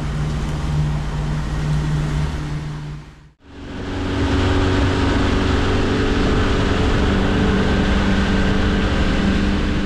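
A 150-horsepower outboard motor running steadily, a constant drone with the rush of water and wake beneath it. The sound dips out briefly about three seconds in, then comes back a little louder and slightly higher in tone.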